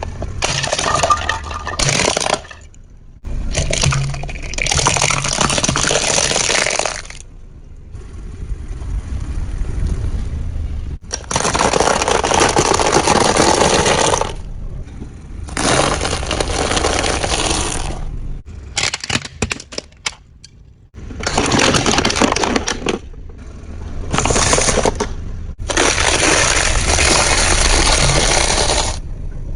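Objects cracking and breaking as a car crushes them, in a run of separate takes a few seconds long, each starting and stopping abruptly.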